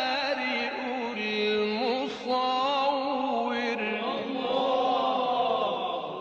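A man reciting the Quran in melodic tilawat, drawing out long vowels with wavering, trilling turns of pitch.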